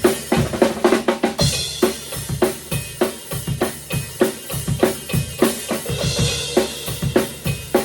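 Rock drum kit playing a fast beat of bass drum and snare strokes against a click track, with cymbal crashes about one and a half seconds in and again about six seconds in.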